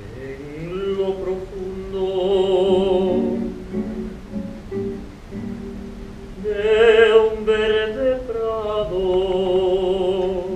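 A trained, operatic singing voice holding long notes with a wide vibrato, over acoustic guitar accompaniment. The voice sings in several phrases and swells loudest about seven seconds in.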